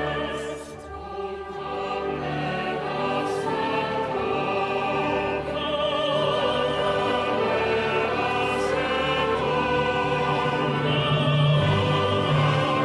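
Classical orchestral music with operatic singing, the high voice held in long notes with vibrato. It softens briefly about a second in, then swells back.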